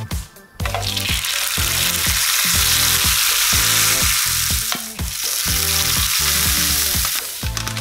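Sheets of rice paper frying in hot oil in a nonstick pan, sizzling steadily as they puff up. The sizzle starts about half a second in, dips briefly near the middle and eases off near the end.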